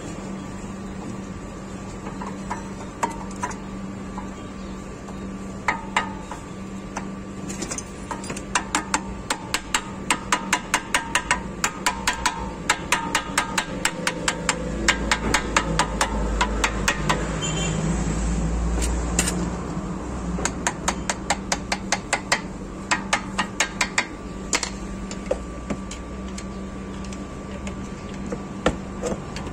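Rapid metal tapping on a Mercedes-Benz front brake caliper as a new brake pad is knocked into place, about three light strikes a second in two long runs. A low rumble comes in partway through, over a steady background hum.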